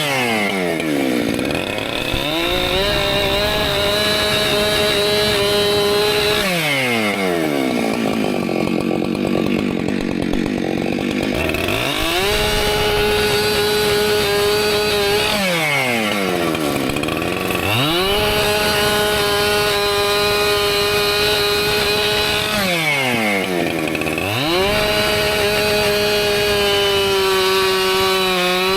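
Husqvarna professional chainsaw cutting firewood, running at high revs with the engine pitch dropping and climbing back again four times. The longest low-pitched stretch is in the middle.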